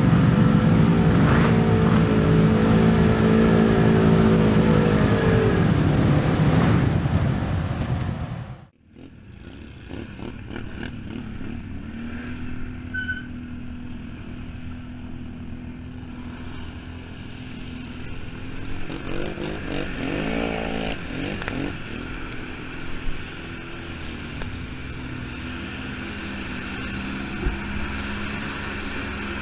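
Quad (ATV) engine running loud and steady, easing down in pitch and cutting off abruptly about eight and a half seconds in. Then an engine runs more quietly, with a brief rev around twenty seconds in.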